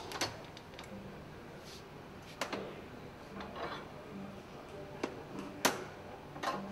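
Steel hand tools clinking and clicking: a torque wrench and socket tool lifted off a pump shaft and handled, about five short sharp knocks spread over several seconds, the loudest about two-thirds of the way through.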